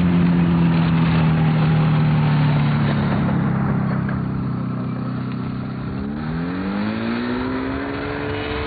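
Microlight trike's engine running as it rolls on the ground: a steady drone whose pitch slowly sinks, then about six seconds in climbs again as the engine picks up.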